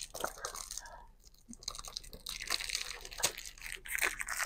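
Perfume box packaging being handled and opened by hand: irregular crinkling, crackling and small clicks of the wrapping, thicker in the second half.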